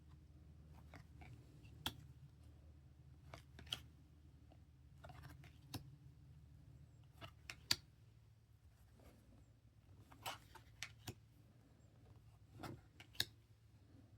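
Faint handling of trading cards: scattered sharp clicks and a few brief rustles as cards are slid and flipped through, over a low steady hum.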